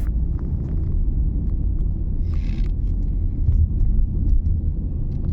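A car driving at road speed, heard from inside the car: a steady low road and engine rumble, with a short hiss about two seconds in and a few faint clicks.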